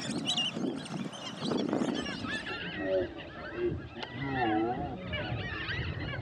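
Several birds calling and chattering at once, with a series of lower, honking calls about three seconds in.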